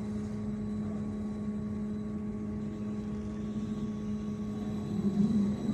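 Steady electrical hum with thin whining tones in the cabin of a BKM 32102 trolleybus, growing a little louder about five seconds in.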